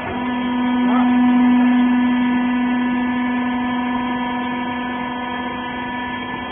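Wiping-rag baler's hydraulic power unit running with a steady hum. The hum swells louder just after the start, then slowly eases off, as the machine works under load.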